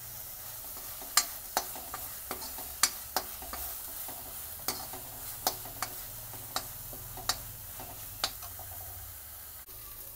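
Steel spoon scraping and knocking against a metal kadhai as thick masala paste is stirred and fried, with a steady sizzle of the paste frying in oil underneath. The sharp knocks of the spoon come irregularly, about a dozen times.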